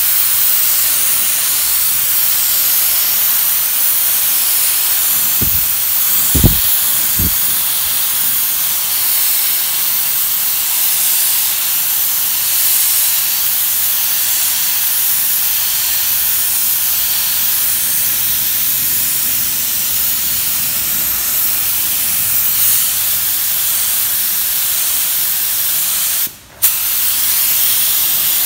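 Compressed-air paint spray gun spraying a coat onto a plastic car bumper: a steady loud hiss of air and atomised paint. A few low knocks come about six seconds in, and the hiss cuts out for a moment near the end.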